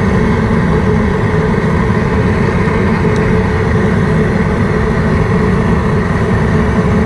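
Propane jet burner of an outdoor seafood-boil kit running under the big stock pot, a steady low rushing noise with no change throughout.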